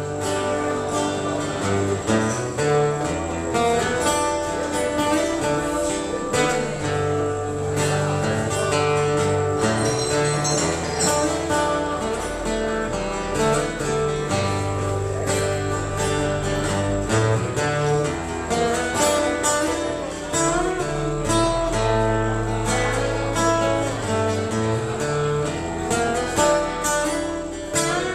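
Instrumental acoustic guitar music, strummed and plucked chords over low held notes, with no singing.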